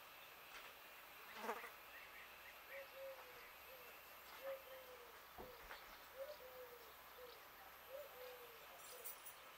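Faint rural quiet with a dove cooing in repeated low phrases, a long note then a short one, over and over. A fly buzzes close past about a second and a half in, and there is a soft knock a little after the middle.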